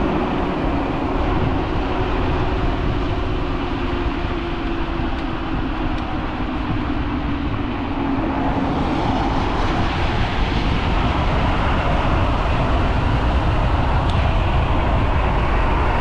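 Wind rush and tyre rumble of a Teverun Fighter Supreme Ultra electric scooter ridden fast over a bumpy road, with the motor's whine falling slowly in pitch over the first half and a higher whine rising in the second half.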